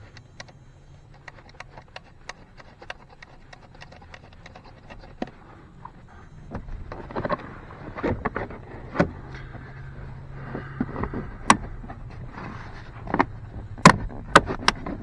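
Scattered clicks and knocks of hands working cables and a plastic interior trim panel, building to several sharp, loud clacks near the end as the panel is pressed back into place. A low steady hum runs underneath.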